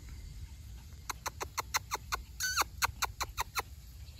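Welsh Terrier puppy giving a quick run of about a dozen short, high squeaky yips, starting about a second in and lasting some two and a half seconds.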